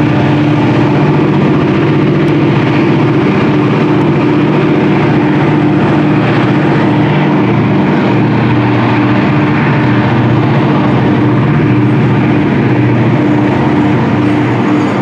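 A set of four EMD SD40-family diesel-electric locomotives howling up a steep grade under heavy load, their two-stroke diesels running hard. The drone holds steady and loud throughout.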